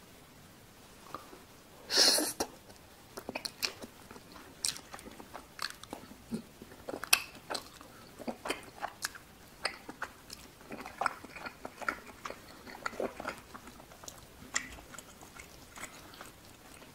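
Close-miked chewing of cheese-topped tteokbokki: a loud mouth sound about two seconds in, then wet, irregular chewing clicks and smacks of sticky rice cakes and melted cheese.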